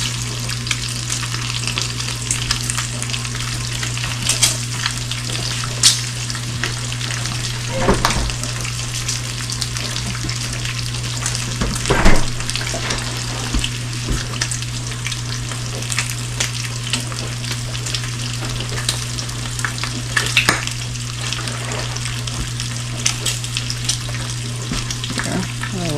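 Bacon frying in a skillet: a steady sizzling crackle with louder pops of spitting fat every few seconds, over a low steady hum.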